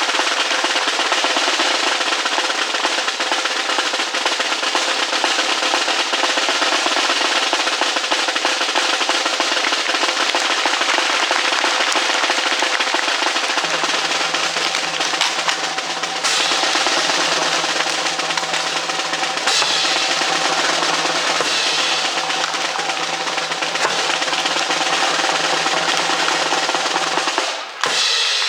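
Snare drum roll held without a break, with a few low thumps in its second half. It cuts off suddenly just before the end.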